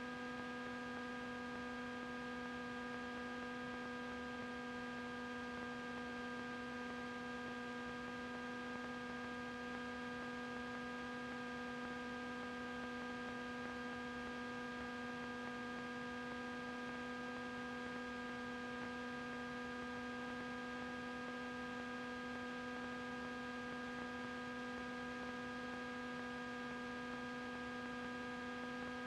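Steady electrical hum on the cockpit intercom audio feed: several fixed tones stacked one above another, unchanging throughout.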